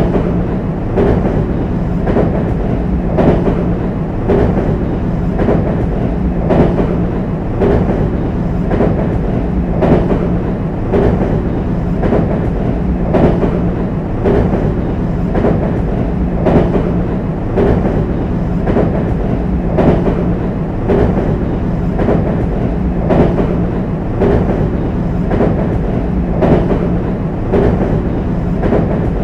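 JR West 225 series electric train running over a bridge, its wheels clattering across the rail joints: a steady clickety-clack with a knock about once a second over a continuous running rumble and hum.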